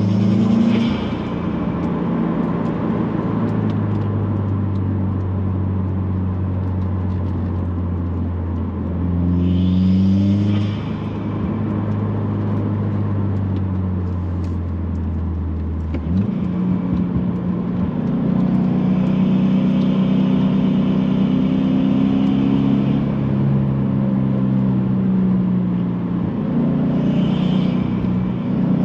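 2018 Subaru WRX's turbocharged FA20 flat-four engine under way, its note rising and falling as it pulls and changes gear several times. A hissing turbo whoosh comes through during the pulls, louder with the aftermarket aluminum turbo inlet.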